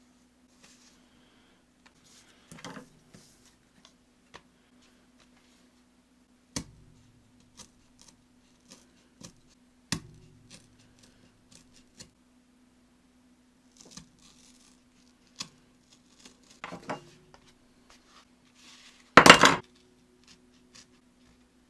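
Scattered clicks and knocks of cardboard and craft tools being handled on a desk while a cardboard play button is cut out, with a louder clatter about nineteen seconds in. A faint steady hum runs underneath.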